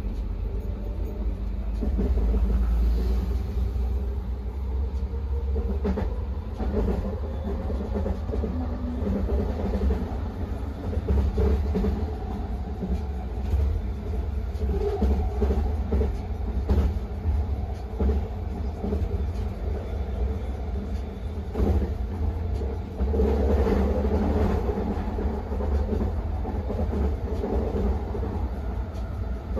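Vancouver SkyTrain Expo Line train running along the track, a steady low rumble with small swells in level throughout.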